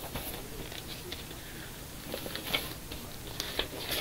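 Faint rustling of paper being handled, with a few short crinkles scattered through.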